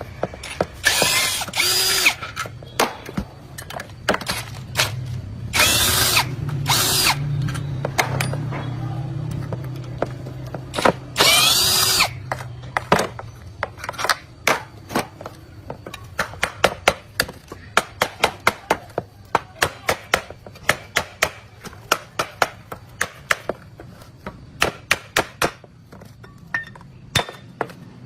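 Power tool run in four short bursts with a high whine, over a steady low hum. Then a long run of sharp, quick taps, about two or three a second.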